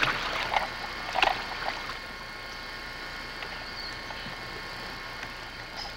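Peacock bass thrashing in a landing net at the water's surface beside an aluminium boat: a few short splashes in the first two seconds, then only a faint steady background.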